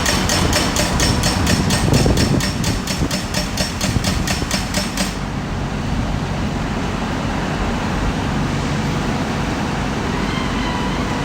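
Solar pile driver's hammer striking rapidly, about four blows a second, over the steady run of its engine; the hammering stops about five seconds in and the engine keeps running.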